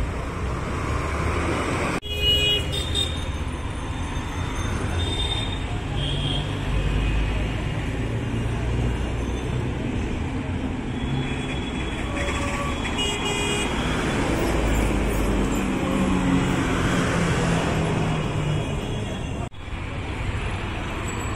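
Busy road traffic: steady engine and road noise of passing vehicles, with short horn toots about two seconds in and again around thirteen seconds in.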